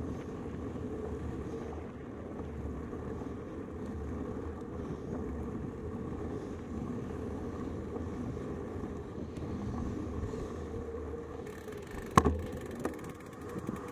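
Steady wind noise and rolling rumble from a camera riding on a road bike's handlebars as it coasts along a paved path. Near the end comes one sharp knock, then a few lighter clicks.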